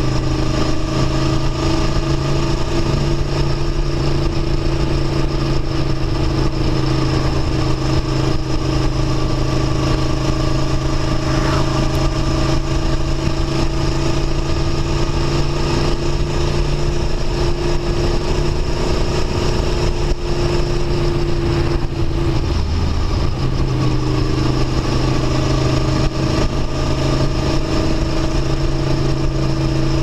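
Aprilia Tuono V4 1100 RR's 1077 cc V4 engine running at a steady cruising speed, heard from the rider's seat. About three-quarters of the way through, the engine note breaks off briefly and then settles to a steady pitch again.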